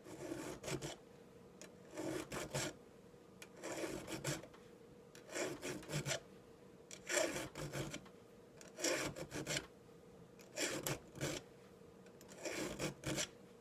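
A 5/32-inch round chainsaw file rasping across a saw chain's cutter tooth in slow, even strokes, about one every two seconds, eight in all, sharpening a dull tooth.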